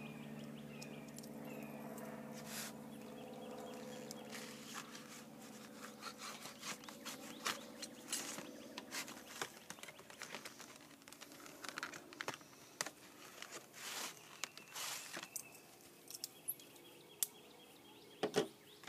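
A knife sawing and scraping through a hard plastic clamshell package, in many short clicks and crackles that start a few seconds in. A low steady hum is heard in the first few seconds.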